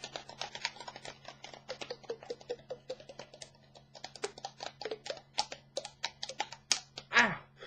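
Rapid, irregular clicking, several sharp clicks a second, like typing. About seven seconds in comes a louder swoop that falls in pitch.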